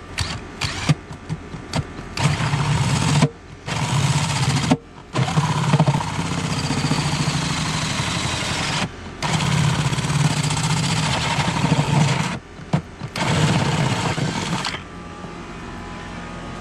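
Cordless drill with a hole saw cutting the inlet hole through the wall of a sewer basin: a few short trigger bursts, then five longer runs of cutting with brief pauses between them, stopping near the end.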